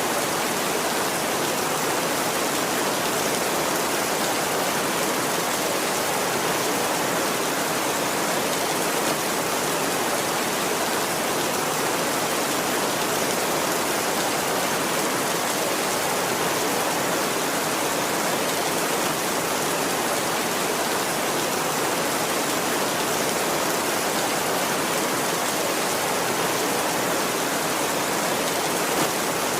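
Heavy rain falling steadily on a tin roof, an even, unchanging hiss.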